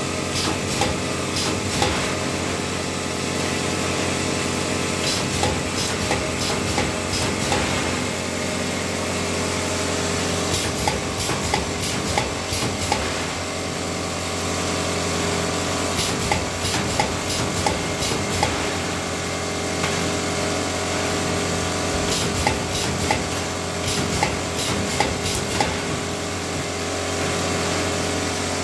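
Pneumatic spot welder joining crossed steel wires into mesh: a steady electrical hum under repeated short, sharp clacks as the electrode comes down on the wire crossings. Light clinks of steel wire being laid and shifted on the steel table come between the welds.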